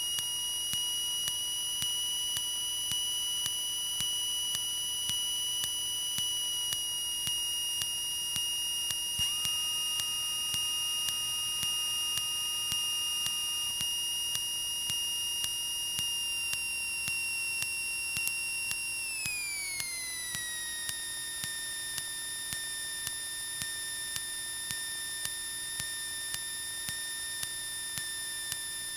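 Steady high-pitched electrical whine of several tones at once in a Cessna 152's headset intercom audio, typical of alternator whine; about two-thirds of the way in it slides down in pitch and settles lower. A brief extra tone joins for a few seconds about a third of the way in, and faint regular ticks run under it.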